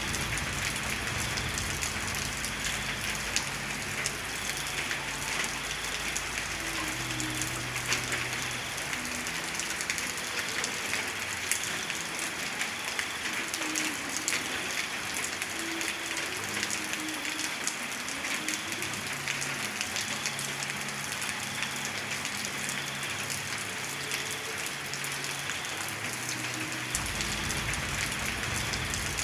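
Steady rain falling on a surface: an even hiss thick with many small drop ticks.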